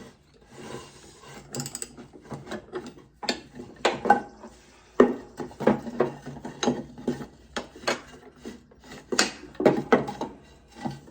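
Irregular knocks and metallic clanks of a wood block and a steel mower blade being shifted and wedged under a mower deck, with several louder clunks about four, five and nine seconds in.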